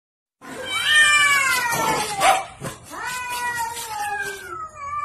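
Cats yowling at each other in a face-off: about three long, wavering yowls in a row, each sliding down in pitch, the threat calls of cats squaring up to fight. The yowls start after a brief silence at the very beginning.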